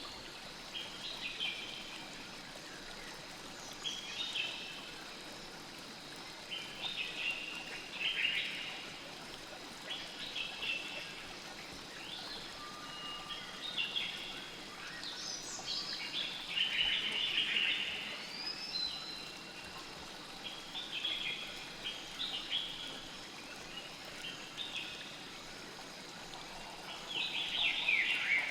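Birds chirping and singing in short, repeated phrases every second or two, busier near the end, over a faint steady hiss of flowing river water.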